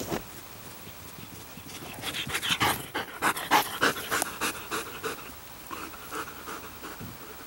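German Shepherd dog panting hard and fast after running, close to the microphone. The panting starts about two seconds in, is loudest for the next few seconds, then grows fainter.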